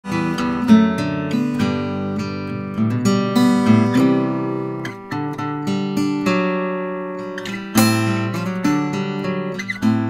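Eastman E20OOSS 00-size acoustic guitar, with an Adirondack spruce top and Indian rosewood back and sides, played solo. A run of picked notes and ringing chords, with a harder strummed chord near the end.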